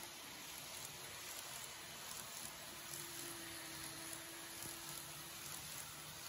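Model train of a 583 series sleeper EMU running past on its track: a soft, steady rolling hiss, with a faint motor whine for a couple of seconds in the middle.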